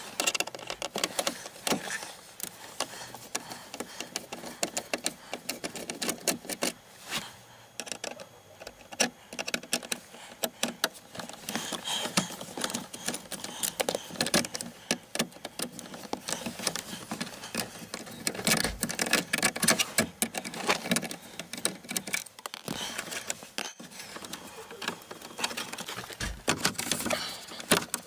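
Irregular clicking and rattling of hard plastic as the lower dashboard trim panel above the pedals is handled, unscrewed and unclipped, with a few sharper clicks among many light ones.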